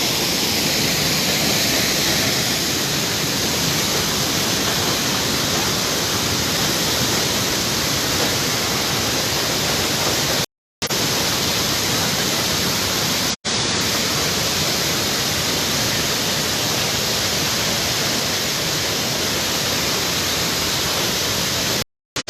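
Waterfall rushing steadily, close to the microphone, broken by three brief dropouts to silence: about ten seconds in, about three seconds later, and just before the end.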